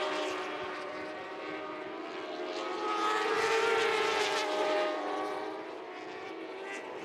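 Moto2 racing motorcycle engines running at speed on the circuit, several at once, their pitch rising and falling as they pass and change gear, loudest about three to five seconds in.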